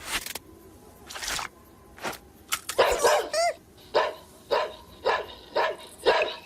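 A cartoon animal character barking in short yaps, about two a second, after a couple of quick swishing noises and a brief gliding call.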